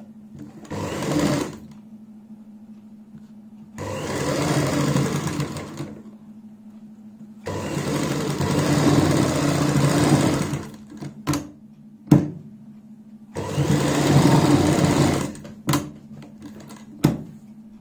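Domestic sewing machine stitching a seam in four runs of a few seconds each, with a few sharp clicks in the pauses between runs and a low steady hum underneath.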